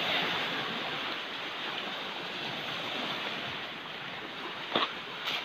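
Surf washing onto a shore of rounded stones, with wind: a steady rushing noise, broken by two brief sharp knocks near the end.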